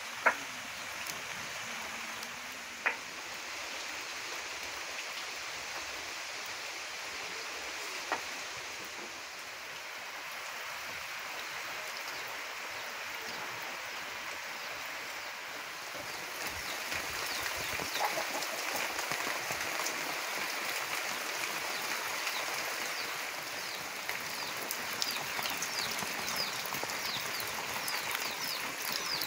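Steady rain falling, an even hiss of rain and running water that grows a little louder about halfway through. A few sharp pops from burning firewood sound in the first eight seconds. Short high ticks come near the end.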